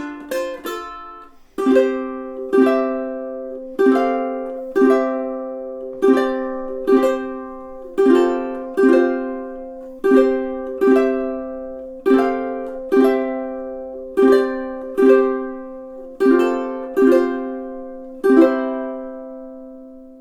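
Snail BHC-5T solid-spruce-top tenor ukulele being played: a few quick picked notes, then full chords strummed about once a second. The last chord is left to ring out and fade.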